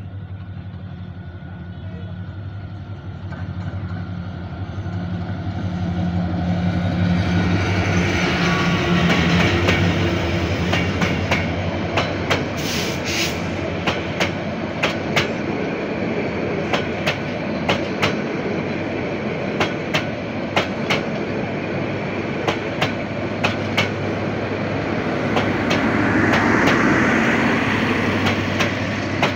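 Bangladesh Railway 3000-class diesel-electric locomotive approaching, its steady engine note growing louder over the first several seconds. Then the intercity coaches roll past with a long, regular clickety-clack of wheels crossing rail joints.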